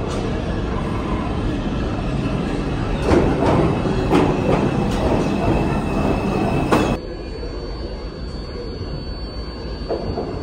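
New York City Subway 5 train pulling into the station: rumbling, clattering over the rails, with the wheels squealing, loudest a few seconds in. About 7 seconds in the sound cuts abruptly to a quieter train rumble with a thin steady high whine.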